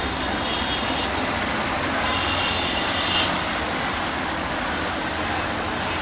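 Steady low rumble of an approaching ALCO WDM-3A diesel locomotive under the general noise of a crowd on the track, with two short, high-pitched horn blasts in the first half, each about a second long.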